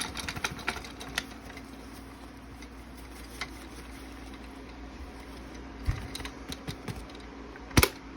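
Small clicks and taps of plastic parts being worked on while a Santa Claus toy is taken apart for repair, with a low knock about six seconds in and one sharp, loud click near the end.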